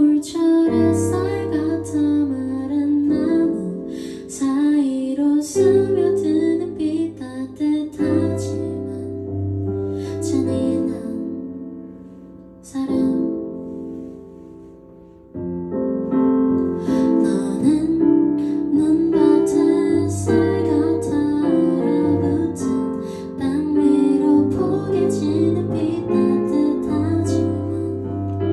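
A woman sings a slow song, accompanying herself on a Kurzweil digital piano. The music fades down a little before the middle, then comes back in at full strength.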